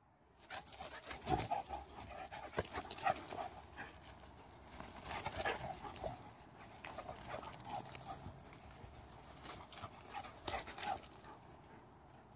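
A dog running and spinning about on a grass lawn, with irregular thuds and scuffs that are loudest about a second in and again near the end.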